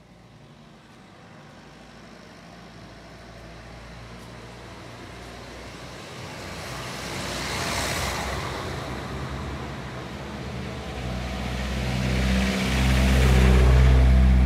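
Road traffic passing close by. A vehicle's tyre noise swells and fades about eight seconds in, then a heavier vehicle's engine draws near and grows loud toward the end.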